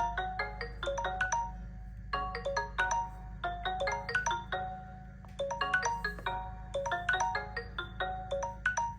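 Smartphone ringtone: a melody of quick short notes, played in repeating phrases with brief pauses about two and five seconds in.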